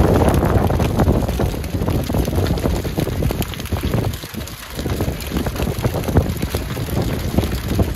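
A large wooden-pallet bonfire burning with fireworks firing from it: a loud, steady rush of flame full of dense crackling. It eases briefly about four seconds in.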